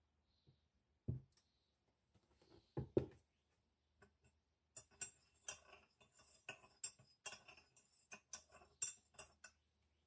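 A metal teaspoon stirring tea in a bone-china mug, clinking sharply against the sides about twice a second for several seconds. Before the stirring, a few dull knocks.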